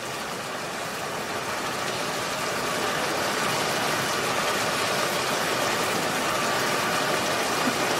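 Steady hiss of a pot simmering on a gas stove, growing slowly louder.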